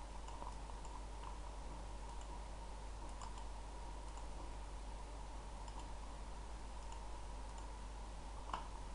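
A few faint, scattered computer mouse clicks over a steady low hum and hiss, with a thin faint whine in the background. The clearest click comes near the end.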